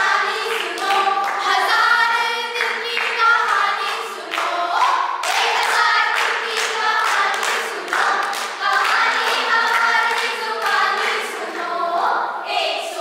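A group of young voices singing a song together, with hands clapping along in rhythm.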